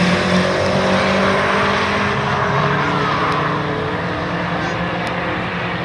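Drag car's engine at full throttle, accelerating away down the quarter-mile strip and slowly fading with distance.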